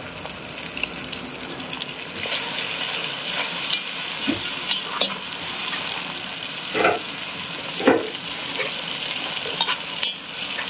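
Chopped vegetables frying in oil in a non-stick pot, a steady sizzle that grows louder about two seconds in. A metal spoon stirs through them, scraping and knocking against the pot several times.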